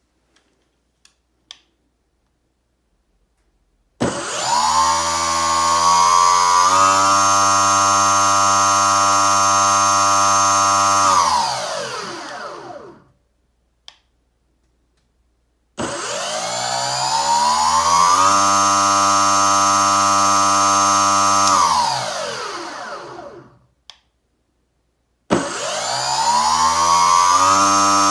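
8080 brushless outrunner motor driving a 70 mm jet-drive impeller on a 6S LiPo, run up three times: each run spools up with a rising whine, holds a steady pitch for several seconds, then winds down, and the third run is still going at the end. A few faint clicks come before the first run.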